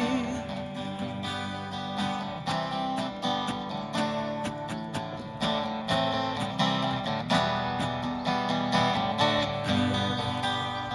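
Instrumental break in a live band song: guitar strumming chords in a steady rhythm, with no singing.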